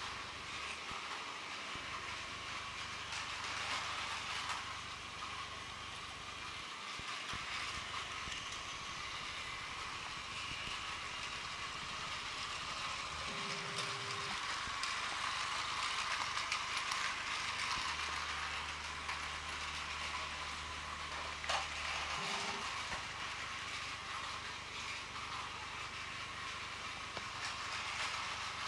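TOMY Plarail battery-powered toy train running on plastic track, its small motor and gears making a steady whir with faint clicks. A low hum joins in for a few seconds past the middle.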